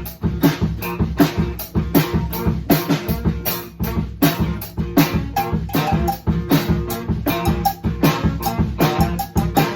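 A live band playing a song with a drum kit keeping a steady beat over bass and guitar.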